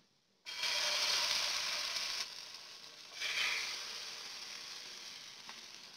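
Beaten egg poured into hot oil in a non-stick frying pan, sizzling as it hits. A first burst starts about half a second in and eases after a couple of seconds. A second swell about three seconds in, as the other bread slice is filled, then fades away.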